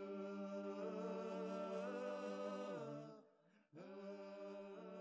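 Voices singing a cappella, holding a long sustained chord that slides down and stops about three seconds in, then a second held chord after a short breath.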